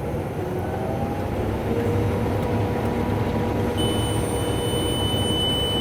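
Combine harvester running through a wheat field, heard from inside the cab: a steady drone of engine and threshing machinery. About four seconds in, a steady high-pitched electronic beep starts and holds.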